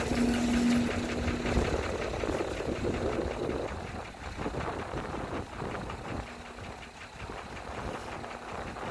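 Construction machine's engine running at a low idle, with a steady hum through the first second and a half; it grows quieter after about four seconds.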